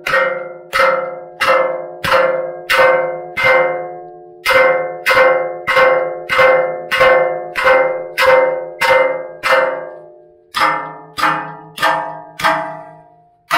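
Steel-headed Martinez M1 hammer striking a steel pipe bumper over and over, about 20 blows at a steady pace of roughly one and a half a second, each a metallic clang that rings on and dies away. The hammering pauses briefly twice, and after the second pause the ringing takes on a somewhat different pitch.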